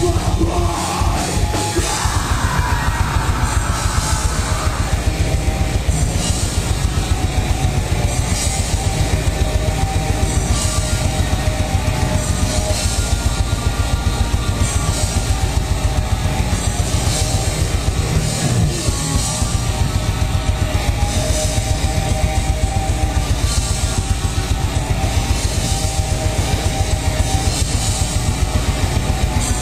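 Black metal band playing live: distorted guitars over fast, unbroken drumming.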